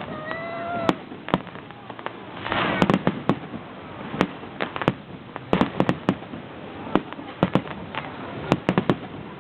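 Aerial fireworks display: a steady run of bangs and pops from bursting shells, with a denser crackling rush about two and a half seconds in.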